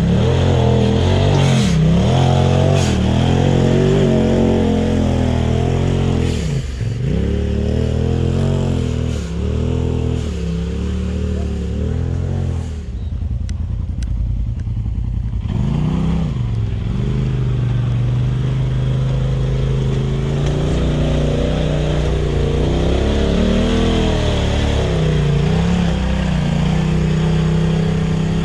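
Polaris RZR side-by-side engine revving up and down over and over, its pitch swinging every second or two, as it climbs a steep, rutted dirt hill. About halfway through it drops to a lower, quieter run for a few seconds, then picks up again and runs more steadily with small wavers in pitch.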